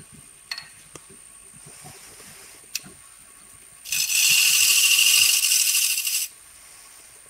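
Spindle gouge cutting a small groove into a wooden vase spinning on a lathe. After a few light clicks, a loud, high hissing cut starts about four seconds in and lasts about two seconds.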